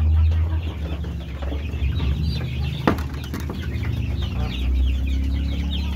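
Chickens clucking and calling in a coop, many short repeated calls, with a single sharp knock about three seconds in.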